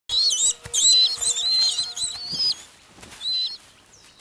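Bald eagle calling: a fast run of high, piping chirps for about two and a half seconds, then one more short call near the end.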